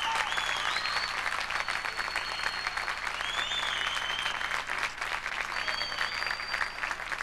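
Audience applauding, steady dense clapping with a few high whistles gliding over it.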